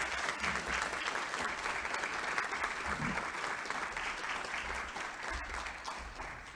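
Audience applause, a dense steady clapping that dies away near the end.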